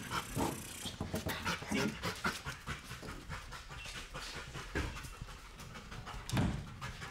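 Yellow Labrador retriever panting rapidly as she runs and searches, with quick scuffs of her paws on a concrete floor. A dull thump about six seconds in.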